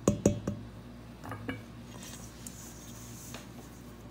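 A spatula knocking against a stainless steel mixing bowl three times in quick succession, each knock ringing briefly, then another metallic clink about a second later. After that comes soft squishing and rustling of shaggy bread dough being worked in the bowl.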